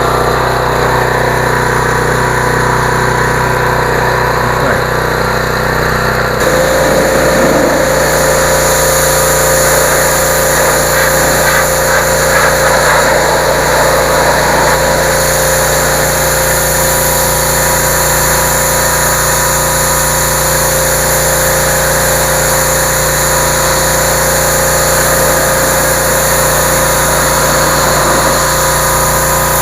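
Generac 2800 PSI gas pressure washer's engine running steadily after starting. About six seconds in the sound changes: a steady higher tone and more hiss come in and hold.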